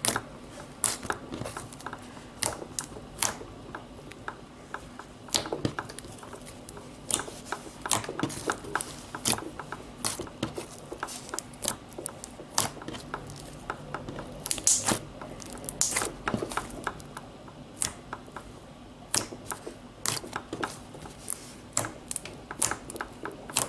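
Glitter glue slime being squished and stretched by hand, making many irregular sharp clicks and pops, several a second, over a faint steady low hum.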